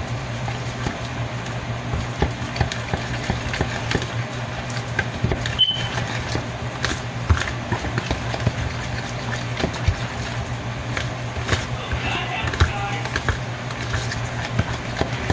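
Spoon stirring cornbread batter by hand in a mixing bowl, with irregular clicks and knocks of the spoon against the bowl over a steady low hum.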